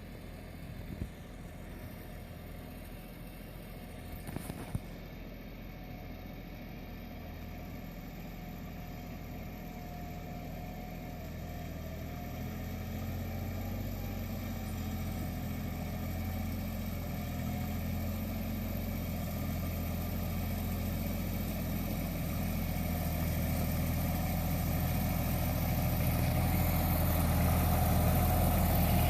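Carraro 5500 small narrow-track tractor's engine running steadily and growing gradually louder throughout. There is a short knock about a second in and another about four and a half seconds in.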